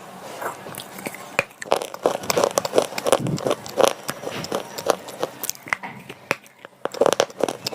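Slate pencil being bitten and chewed: many short, sharp crunches and cracks close to the mouth.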